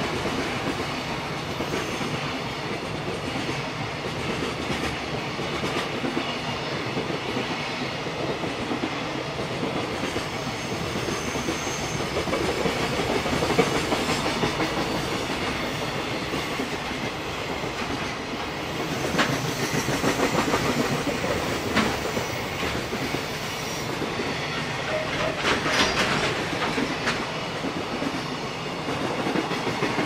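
Container flatcars of a JR Freight container train rolling past close by: a steady rumble of steel wheels with a clickety-clack over the rail joints. A cluster of sharp knocks comes about two-thirds of the way through.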